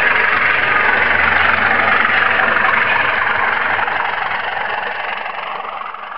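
Model railway trains running on the track: a steady running noise of wheels and motors that fades away near the end.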